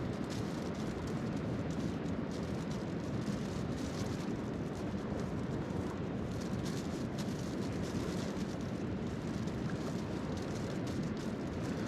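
Steady rushing of a river, with faint intermittent crackles from the adhesive repair patch being handled and pressed down.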